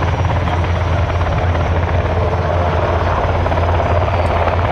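NH90 Caïman twin-turbine helicopter hovering: a steady rotor and turbine noise with a strong, even low drone that does not change.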